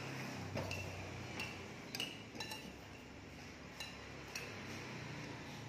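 A metal fork clinking against a plate and skewers as chicken satay is pushed off the sticks: about six light clinks, irregularly spaced, over a low steady hum.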